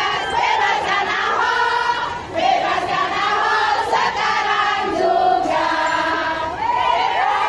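A large crowd of mostly women's voices singing together, many voices at once.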